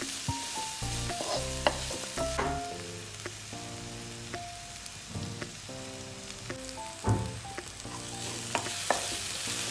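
Crushed fennel seeds, ginger, garlic and curry leaves sizzling in coconut oil in a non-stick kadai, stirred with a spatula that scrapes and now and then taps against the pan. The aromatics are being sautéed until their raw flavour goes.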